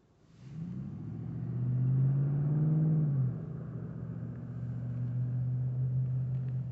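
A motor vehicle's engine accelerating, its pitch climbing, then dropping slightly about three seconds in, then running at a steady pitch.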